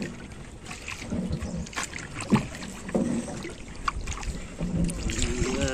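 Irregular knocks and clicks of handling on a fishing boat as a longline of baited hooks is paid out over the side, with wind on the microphone.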